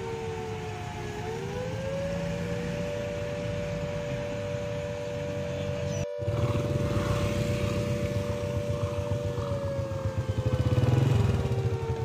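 A siren wailing, its pitch rising slowly about a second in, holding, then falling near the end, over a low rumble that swells shortly before the end. The sound cuts out for an instant about six seconds in.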